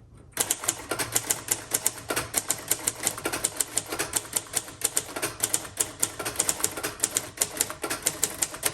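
1958 Royal Futura 800 manual typewriter being typed on: a steady stream of sharp keystroke clacks, about six a second, starting about half a second in.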